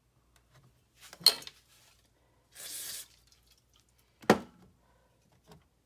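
Two sharp clinks of hard parts or tools being handled during the leaf blower's disassembly, about three seconds apart, with a brief scraping rush between them and a few light ticks.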